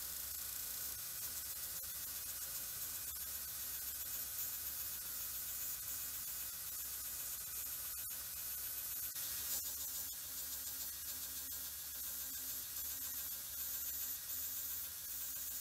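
Belt-converted Rotorex surface grinder running an abrasive belt over its contact wheel, grinding a flat steel workpiece on the chuck: a steady high hiss of belt on steel over a low motor hum.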